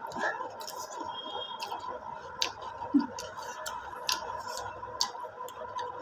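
Close-up eating sounds: a mouthful of pork being chewed, with small sharp mouth clicks and smacks at irregular intervals over a faint steady hum.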